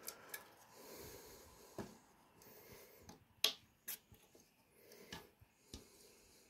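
A few sharp clicks and taps from a glass perfume bottle being handled, the loudest two about three and a half and four seconds in.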